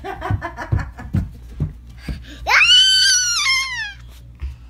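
A young child's high-pitched squeal about two and a half seconds in: one long shriek that shoots up, holds, and falls away. It comes after a second or so of the child's voice and dull thumps.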